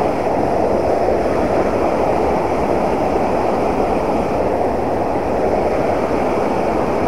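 Fast river current churning into white water, a steady rushing noise.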